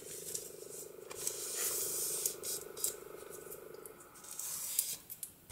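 Sheets of scrapbook paper rustling and sliding as they are handled and pressed flat, in irregular scrapes and rubs, over a faint steady hum that stops near the end.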